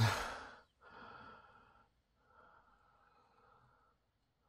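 A person's short sigh, fading over about half a second, followed by a faint, steady hum in two short stretches.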